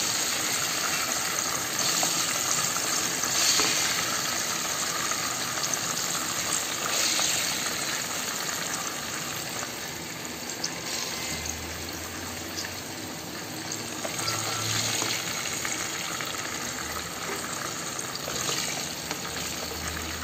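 Hot oil sizzling steadily in a nonstick pan as whole slit baby brinjals fried in it are lifted out with a spatula. The sizzle swells briefly several times.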